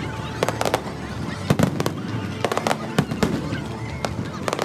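Aerial fireworks bursting overhead: a rapid, irregular run of sharp bangs and crackles, several a second at times, over a steady background din.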